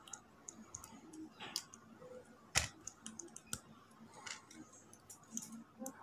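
Faint small plastic clicks and taps of LEGO minifigure parts being handled and pressed together, with a sharper click about two and a half seconds in and another about a second later.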